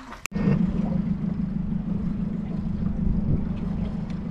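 A small boat's motor runs with a steady, even low hum. It starts abruptly a fraction of a second in, after a brief click.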